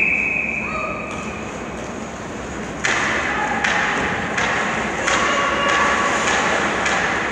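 A referee's whistle blast at the start, fading in the arena's echo. From about three seconds in, ringette sticks and the ring knock against the ice and the boards at irregular intervals.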